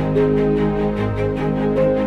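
Background music: held chords over a quick, steady pulse.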